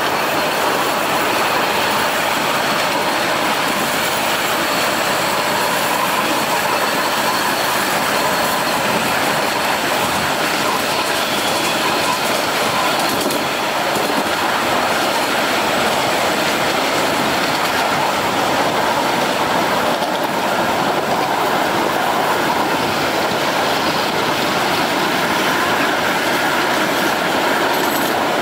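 Miniature ride-on railway train rolling along its track: a steady noise of small steel wheels running on the rails, with no breaks or single loud events.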